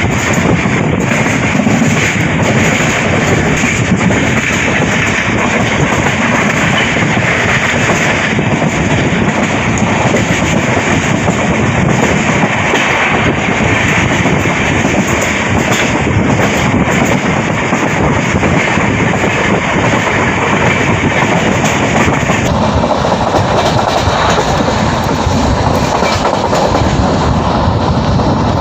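Pandian Express passenger train running along the line, heard from aboard: a steady loud rush of wheels and coaches with clickety-clack over the rail joints. The sound grows deeper about three-quarters of the way through.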